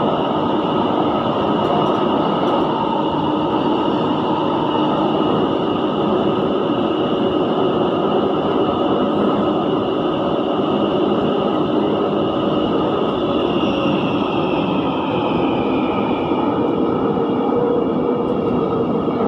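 Taipei Metro train car running, a steady loud rumble and hiss of the train in motion with a high whine running through it. About 13 seconds in, the whine slides down in pitch as the train slows.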